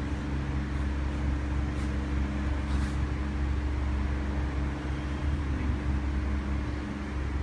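Steady low mechanical hum with several fixed low tones, unchanging throughout.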